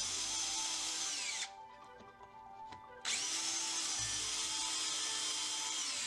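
DeWalt cordless drill with a small 3/16-inch (5 mm) bit running through a white melamine panel. It runs for about a second and a half and winds down, then starts again about three seconds in for a second hole and winds down near the end.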